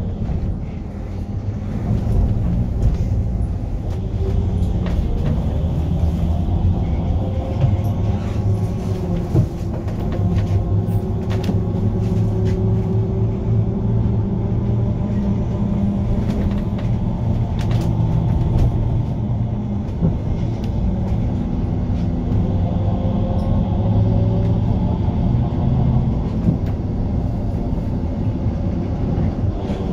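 Hess Swisstrolley 4 articulated trolleybus running on electric power from its overhead wires: the electric traction drive whines in pitch that slowly rises and falls as the bus speeds up and slows, over a steady low rumble of the ride, with scattered short rattles and clicks.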